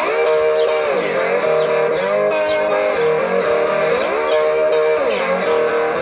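Electric guitar playing an instrumental break in a country song, with held chords and notes that slide down in pitch and back up several times.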